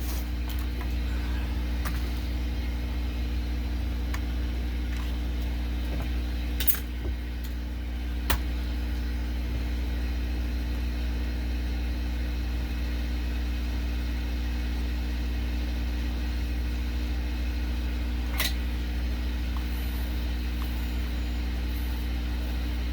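Steady electrical hum and fan drone from bench repair equipment, with three short sharp clicks or taps about 7, 8 and 18 seconds in.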